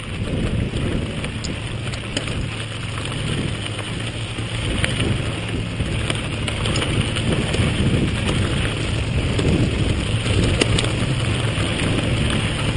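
Wind buffeting the microphone over mountain bike tyres rolling on a loose gravel dirt road downhill, with scattered clicks and rattles from the gravel and the bike.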